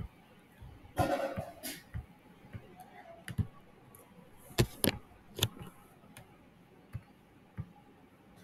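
Scattered clicks and knocks of a computer mouse and keyboard being used at a desk, with a short rustling burst about a second in and the loudest clicks just before the middle.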